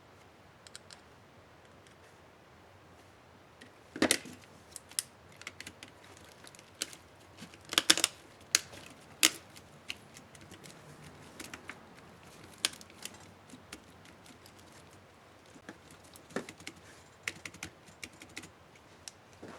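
Plastic keys and keycaps of an Acer Aspire One 725 laptop keyboard clicking irregularly as they are pressed and snapped, with two clusters of louder snaps and scattered lighter clicks.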